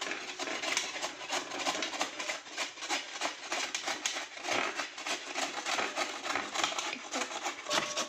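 Raw bottle gourd being grated by hand on a metal grater: quick, even rasping strokes, about four a second, one after another.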